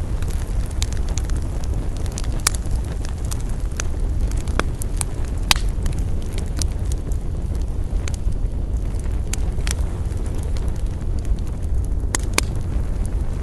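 Campfire burning, with scattered sharp crackles and pops, a few louder ones about two and a half, five and a half and ten seconds in and a close pair near the end, over a steady low rumble.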